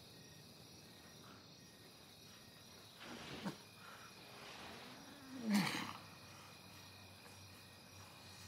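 A man's strained grunts, twice: a short one about three seconds in and a louder, longer one about halfway through. Behind them is a faint steady chirring of insects.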